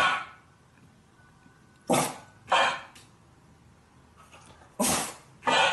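Short, gruff, cough-like dog barks in pairs about half a second apart: one at the very start, a pair about two seconds in, and another about five seconds in.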